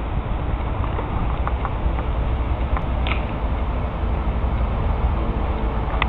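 Steady low rumble of wind buffeting a handheld camera's microphone outdoors, with a few faint short ticks.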